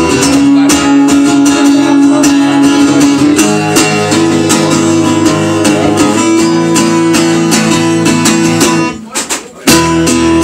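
Acoustic guitar strummed fast and hard in a live acoustic punk-folk song. Near the end the playing breaks off for about half a second, then comes back in loudly.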